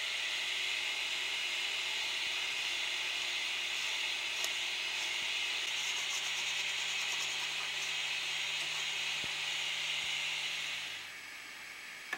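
Aerosol spray can hissing steadily as a coating is sprayed onto a 3D printer's print bed, cutting off about eleven seconds in.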